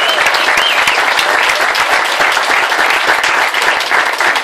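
Crowd applauding with steady clapping, with a short wavering whistle at the start.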